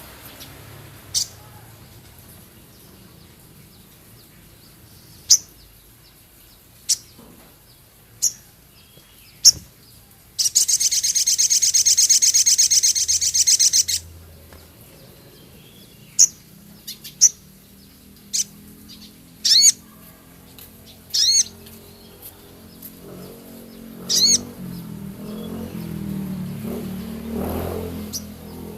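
Male sogon (chestnut-backed scimitar babbler) singing in short, sharp, high chirps at irregular intervals, with a loud, rough rapid rattling chatter lasting about three and a half seconds, about ten seconds in. A low rumble sits underneath near the end.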